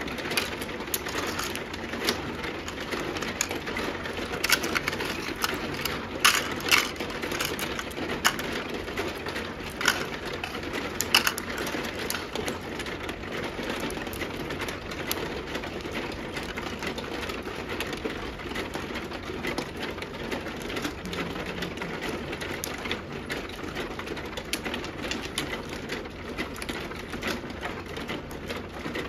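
Mahjong tiles clacking against each other and the felt tabletop as players draw and discard. The clacks are sharp and frequent, thickest in the first dozen seconds, over a steady low rattle from the automatic mahjong table.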